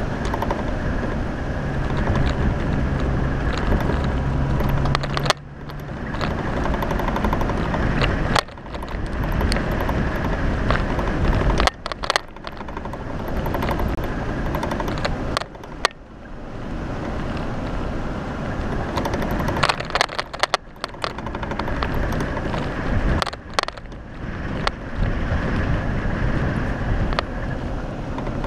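Jeep Wrangler driving over a rough dirt trail: the engine runs under continuous crunching and scraping of tyres on rocks and gravel, with many knocks and rattles and a few sudden brief dips in the noise.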